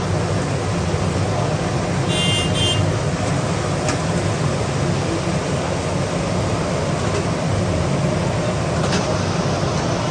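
Steady noise of a busy roadside frying stall, oil bubbling in big karahis mixed with street traffic rumble. A short high horn toot sounds about two seconds in, and two sharp clicks come near the middle and near the end.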